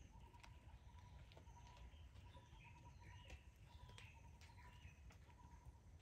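Near silence with faint, scattered bird chirps and a few light clicks over a low rumble.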